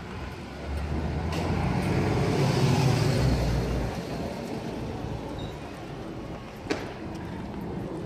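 Street traffic with a road vehicle passing close by: its engine and tyre noise swells over about three seconds and then fades. A single sharp click comes near the end.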